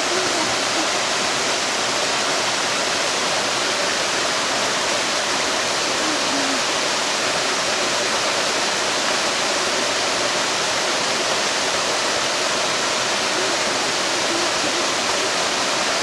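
Water of the Dzhur-Dzhur mountain stream rushing over small cascades into rock pools, a steady, even rush with no breaks.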